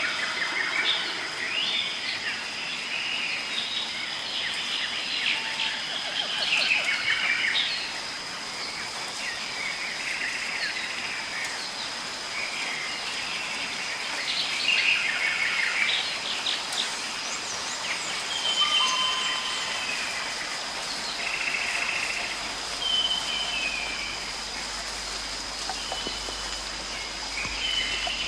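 Birds chirping and calling in frequent clusters of short notes, with a few longer whistled notes in the second half, over a steady hiss of rain.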